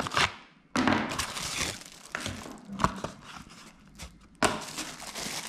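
Crinkling and rustling of paper and plastic packaging as a small cardboard box is unpacked by hand, with a sharp click about three seconds in and the rustling picking up again near the end.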